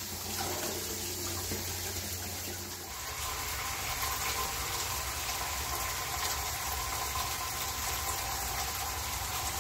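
Kitchen faucet running steadily into a plastic tub in the sink. About three seconds in the sound of the falling water changes and takes on a faint steady tone.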